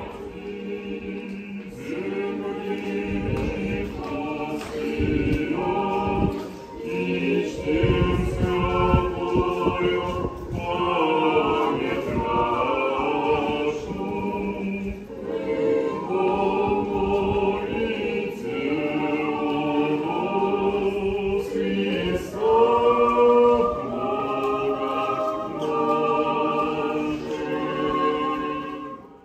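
Orthodox church choir singing unaccompanied, several voices holding sustained chords, fading out at the end.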